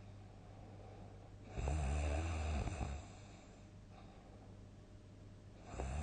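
A sleeping person snoring loudly: one long snore about a second and a half in, lasting over a second, quieter breathing after it, and the next snore starting near the end.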